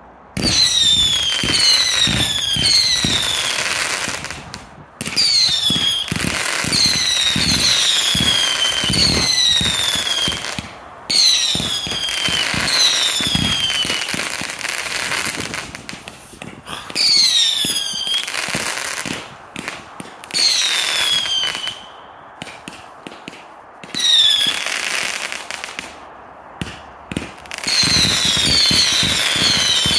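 Evolution Fireworks Final Frontier 500-shot firework cake firing: a rapid stream of launch thumps and crackle with many overlapping whistles, each falling in pitch. It comes in surges a few seconds long with brief lulls between them.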